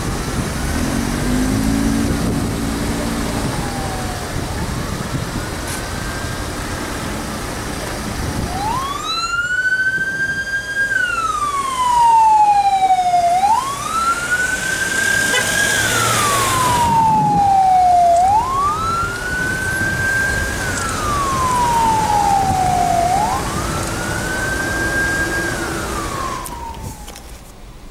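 Ambulance siren wailing in repeated slow cycles, each a quick rise to a high note, a short hold and a long falling slide, about every four and a half seconds. It is faint at first, grows loud about a third of the way in, and cuts off near the end, over the low noise of queued traffic.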